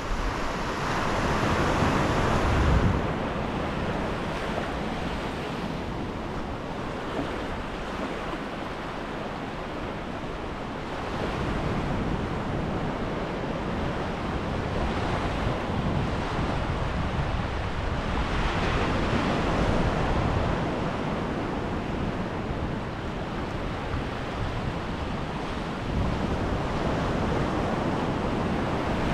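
Sea surf breaking and washing on a beach, surging louder every several seconds, with wind rumbling on the microphone.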